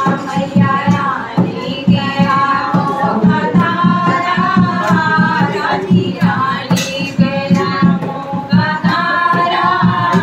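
A group of women singing a folk song together to a hand-played dholak that keeps a steady beat, with some hand claps.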